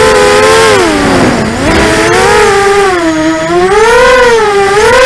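ImmersionRC Vortex 250 Pro racing quadcopter's brushless motors and propellers whining, heard from on board. The pitch drops sharply about a second and a half in as the throttle comes off, climbs back, dips again around three seconds in, and rises near the end.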